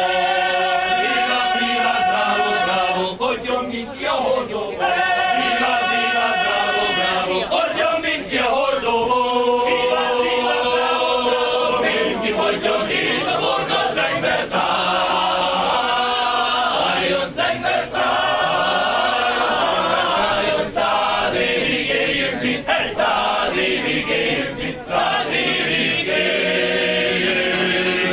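Men's choir singing unaccompanied in close harmony, holding long notes and moving from chord to chord.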